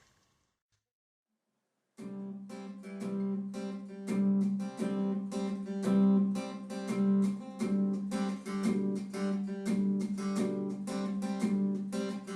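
About two seconds of silence, then background music starts abruptly: the intro of a song, with an acoustic guitar strummed in a steady rhythm.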